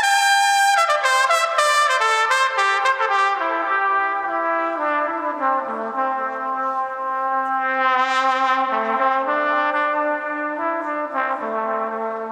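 Trumpet playing a slow worship melody of long held notes, with sustained chords beneath it.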